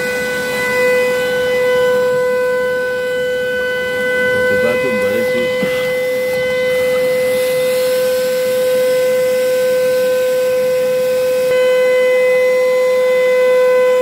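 Wet/dry vacuum running steadily with a high motor whine, its hose nozzle sucking water out of a flooded car floor pan.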